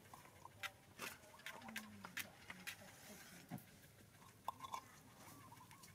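Near silence broken by scattered faint clicks and soft taps, as sticks poke into a small heap of removed dog ticks on wet dirt. A faint voice is heard briefly about two seconds in.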